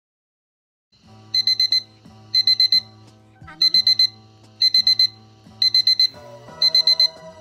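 An alarm beeping in quick groups of four, about once a second, starting about a second in, with quiet music underneath.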